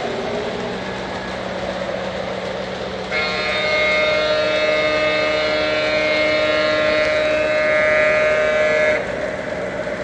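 Sound system of an O-scale model diesel switcher: a steady diesel engine rumble, with a long horn blast starting about 3 s in and cutting off about six seconds later.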